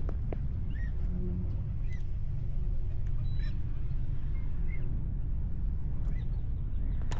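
Steady low rumble with a few short, scattered bird calls over it.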